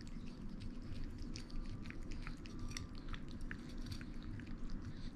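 Cat licking at a hand-held plastic spoon, a run of small, irregular wet licking and smacking clicks.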